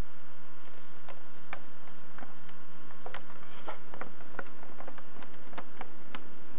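Scattered small clicks and ticks at an irregular pace, a few a second, over a steady electrical hum and hiss.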